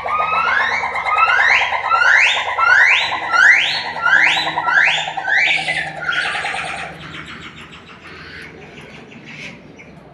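A monkey giving a loud call: a series of rising whoops, about two a second, each sweeping upward and climbing higher through the series. After about seven seconds it trails off into fainter, shorter notes.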